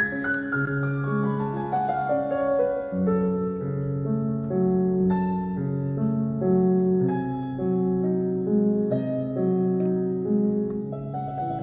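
Slow background piano music: a run of falling notes at the start, then unhurried held notes and chords.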